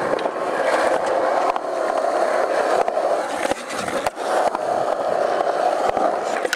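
Skateboard wheels rolling steadily over concrete, with a couple of sharp clicks near the middle where the rolling briefly dips.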